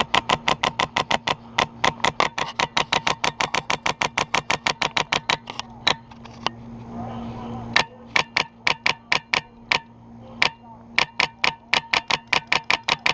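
Airsoft gun firing on full auto, long strings of sharp shots at about seven a second, broken by a pause of about two seconds near the middle.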